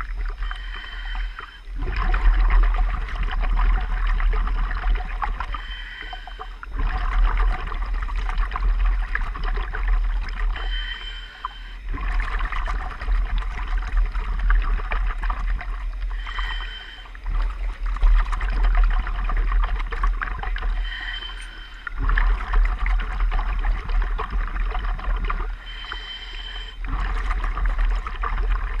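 Diver breathing on a regulator or dive helmet at the water surface: a breathing cycle repeats about every five seconds, a quieter hissing stretch followed by a louder bubbling one, over a steady deep rumble of water sloshing around the gear.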